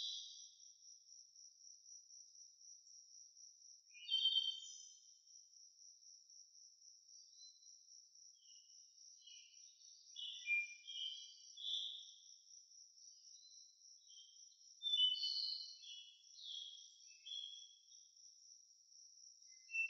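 Birds chirping in short bursts over a steady, high, pulsing insect trill; the loudest chirps come about four seconds in and again near fifteen seconds.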